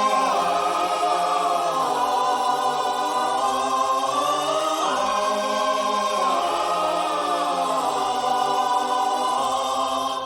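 Wordless choir singing long held chords with no beat, the chord shifting every couple of seconds, fading out at the very end.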